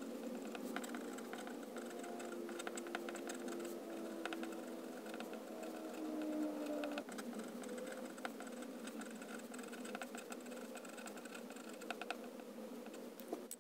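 Extra-fine fountain pen nib scratching and ticking across Rhodia dot-pad paper as handwriting is written, a run of small irregular strokes over a faint steady hum.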